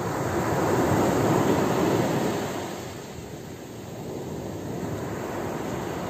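A small sea wave breaks and washes up a fine-pebble beach as a rushing surge that swells for about two seconds and then eases to a lower, steady wash.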